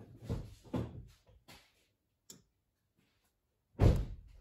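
Irregular clattering handling noise, then a single sharp click about two seconds in, and a loud heavy thump near the end.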